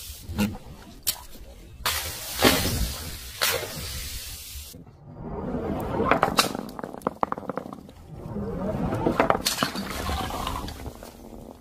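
A few hard knocks and splats with a hiss of spray, then a ball rattling as it rolls down a wooden ramp, then a large water bottle bursting and its liquid gushing out across paving tiles.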